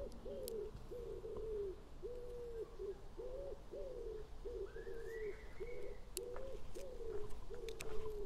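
Pigeon cooing, a long run of short low notes about two a second, with a faint higher bird call about five seconds in.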